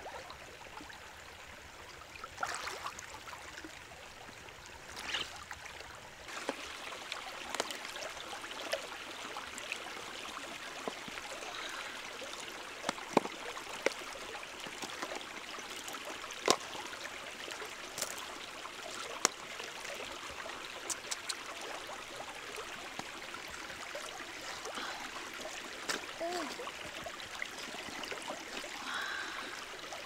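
A shallow stream runs over stones with steady water noise and some splashing. Scattered sharp clicks and knocks come from large freshwater mussel shells being handled and set down on rock.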